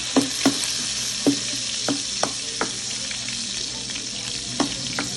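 Onion, garlic and pork pieces sizzling in hot oil in a nonstick wok, with a steady hiss, while a spatula stirs them and knocks against the pan about seven times.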